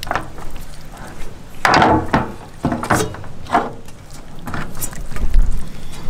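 Hands working masala paste into a whole guinea fowl on a metal tray: wet slaps and squelches, with several sharp knocks as the bird is turned against the tray.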